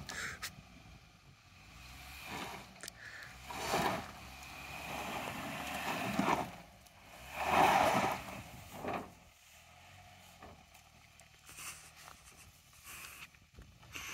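Hyundai Santa Cruz pickup revving in several surges, the loudest about eight seconds in, as it works its way off a steep dirt bank where it had high-centred, heard from outside the truck. A quieter low engine hum follows near the end.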